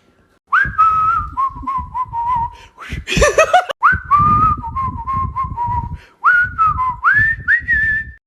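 A person whistling a sound effect for a walk in two phrases. Each phrase opens with an upward swoop, then steps between held notes, with a short squeaky vocal noise between the phrases about three seconds in.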